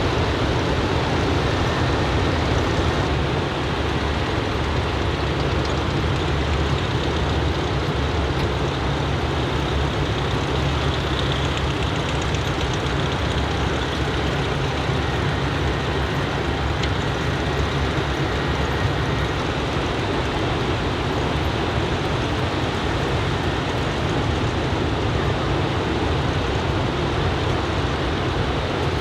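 Steady roar of ocean surf under a typhoon swell, with a low rumble underneath and no single wave standing out.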